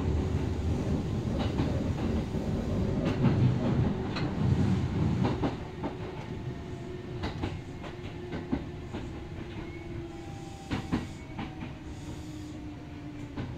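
Running sound heard inside a Kintetsu 8000 series electric train motor car: a loud low rumble of wheels and running gear, with clacks from the rail joints. About five seconds in the rumble drops in loudness. In the later seconds a humming motor tone falls slowly in pitch as the train slows.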